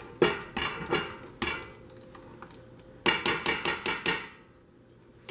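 Wire potato masher clanking against a stainless steel saucepan while mashing boiled potatoes: about five sharp metal clinks in the first second and a half, then a quicker run of about seven starting about three seconds in.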